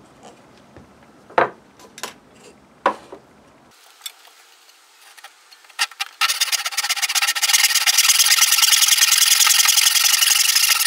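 A few light knocks as a pencil and square are handled on a wooden workbench, then from about six seconds in a hand backsaw cutting through a small wooden board in steady, rapid strokes.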